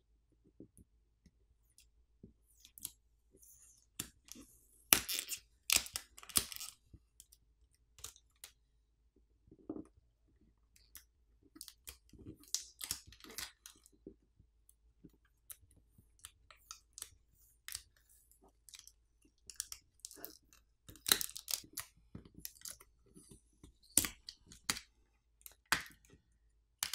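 Adhesive pull tabs being peeled off a smartphone battery to release it: scattered crackling and crinkling, with light clicks and taps of fingers and parts against the phone's frame, busiest about five seconds in and again in the last few seconds.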